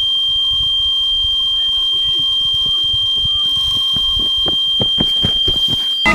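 Electronic carp bite alarm sounding one continuous high-pitched tone as a fish runs with the bait and pulls line off the reel. A string of sharp clicks comes faster and faster in the second half, and the tone cuts off abruptly near the end.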